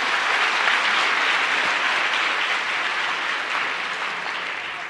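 Audience applauding: many hands clapping in a dense, steady patter that eases off slightly near the end.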